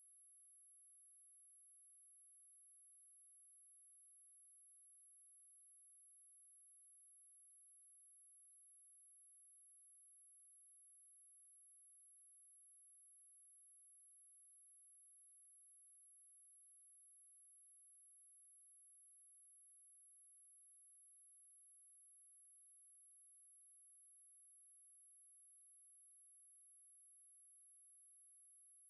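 A pure 10894 Hz sine-wave test tone, a single steady high-pitched whistle held at constant level, used to test speakers and to shake water and dust out of them.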